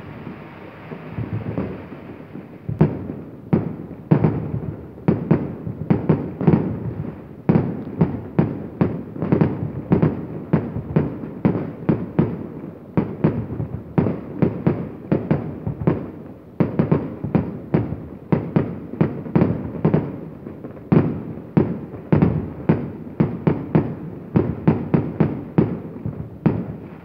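Fireworks going off in a rapid barrage of sharp bangs, about two or three a second, with shots rising and bursting overhead. The bangs come a little more sparsely for the first few seconds, then keep up steadily.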